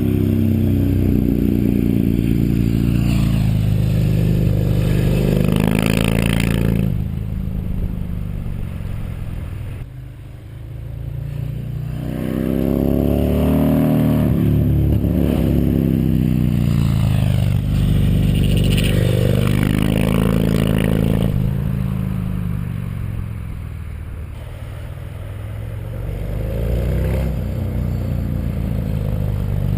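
Yamaha MT-01's big V-twin running through a full titanium Akrapovic exhaust with the EXUP valve and catalysts removed, revs rising and falling repeatedly as it pulls and rolls off. The throttle closes and the sound drops about a third of the way in, then it pulls again.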